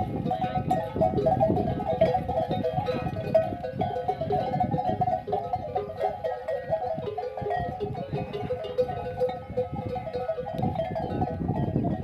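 Bells on a herd of camels ringing as the animals move, an irregular, continuous jangle of many overlapping metallic tones.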